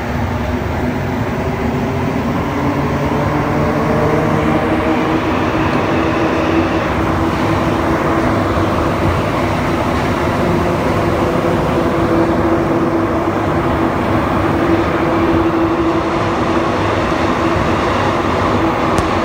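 A Montreal Metro MPM-10 (Azur) rubber-tyred train running, heard from inside the car: a steady rumble of the running gear with the drive's hum in a few steady tones, getting a little louder over the first few seconds.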